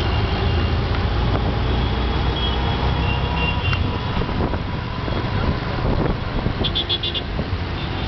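Auto-rickshaw's small engine running with a steady low drone as it rides through city traffic, heard from inside its open cabin. Vehicle horns toot several times, with a quick run of short beeps a little before the end.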